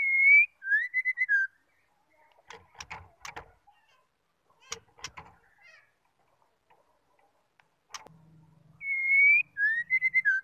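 White-rumped shama giving a short whistled phrase, one long slurred whistle followed by a few shorter dipping notes, twice: at the start and again about nine seconds later. In between come a few sharp clicks.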